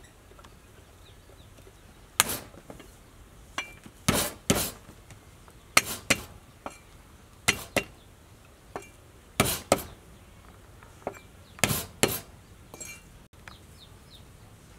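Kitchen knife cutting vegetables on a wooden cutting board: a slow, irregular series of sharp knocks, several coming in quick pairs.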